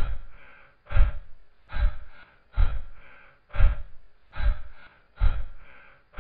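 A repeating dramatic sound effect: a deep thump a little under once a second, each followed by a breathy, gasp-like hiss that fades away.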